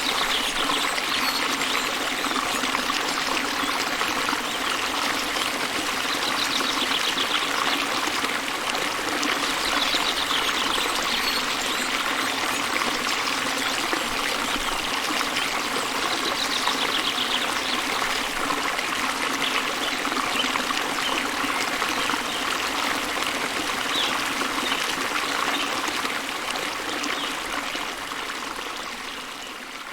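Water of a waterfall running steadily, an even splashing rush that fades down over the last few seconds.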